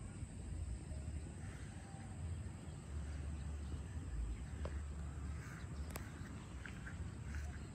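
Wind buffeting the microphone as an uneven low rumble over faint outdoor background noise, with a few faint, short animal calls in the second half.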